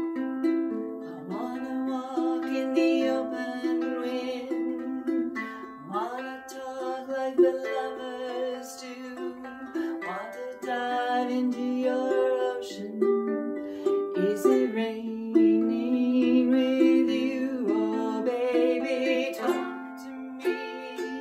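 A ukulele is fingerpicked in a repeating pattern over A minor, F and G chords. The thumb plays the G and C strings, and the index and middle fingers take the E and A strings. The chord changes about every four seconds.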